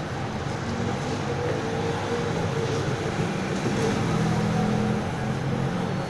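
Steady low mechanical rumble with a wavering hum that swells about four seconds in.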